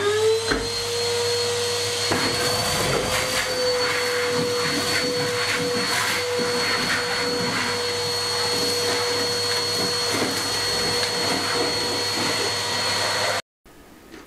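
Vacuum cleaner running, its motor whine rising as it spins up at the start and then holding steady, with scattered clicks and rattles as it sucks grit and dust out of the mortar joints of a rough stone wall. It stops abruptly near the end.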